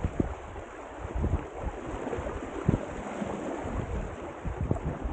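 Wind buffeting the microphone in irregular low gusts over a steady hiss of water rushing past the hulls of a Hobie Tiger F18 catamaran under sail.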